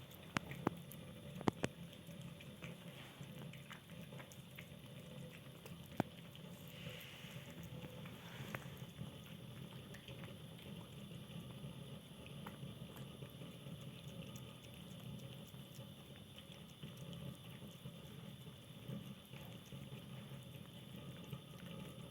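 Kittens eating: small wet mouth and chewing sounds, with a few sharp clicks in the first two seconds and one at about six seconds.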